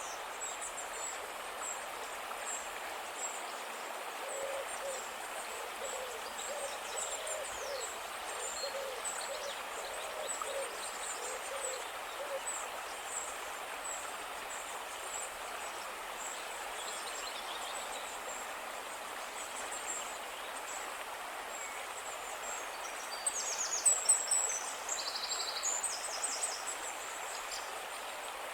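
An owl hooting, a run of short low hoots over the first half, over steady high-pitched bird or insect chirping and a soft even hiss. A burst of louder high chirps comes near the end.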